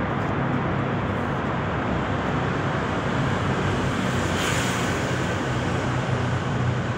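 Steady rushing noise with a faint low hum under it, with a brief brighter hiss about four and a half seconds in.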